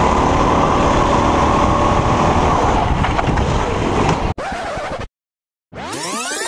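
Go-kart engine running at high revs, heard from the driver's seat with heavy wind noise on the microphone, cut off abruptly about four seconds in, then again briefly. After a short silence, a sound effect of sweeping tones that rise and fall begins near the end.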